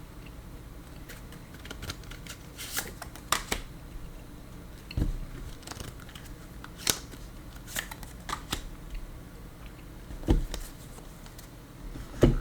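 Tarot cards being handled and laid down on a table: scattered short taps and flicks of card stock, with a few duller thuds as cards are set down.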